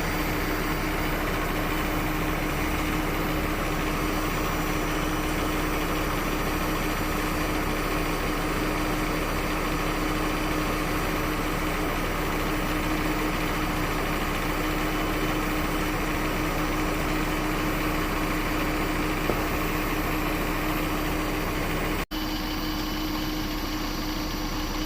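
2015 Jeep Grand Cherokee engine idling steadily with the air conditioning running while refrigerant is charged in, a constant hum over the engine noise. The sound briefly cuts out near the end.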